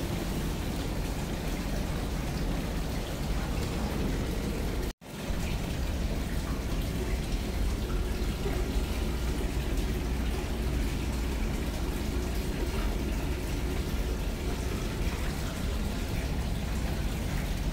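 Water running and splashing steadily into a bath, over a low steady rumble; the sound drops out for an instant about five seconds in.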